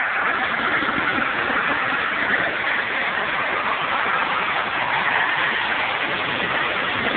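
Jet engine of a go-kart running steadily: a loud, even rushing noise with no breaks.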